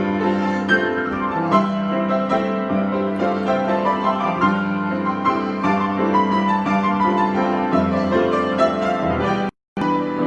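Piano improvisation, many notes played over a held low note, with the sound cutting out completely for a moment about nine and a half seconds in.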